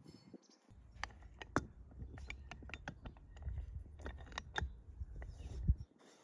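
Afghan cast-aluminium pressure cauldron being clamped shut: metal clicking and clinking as the lid's clamp bar is seated and its screw is turned down by the handle. A low rumble under the clicks stops near the end, just after one louder click.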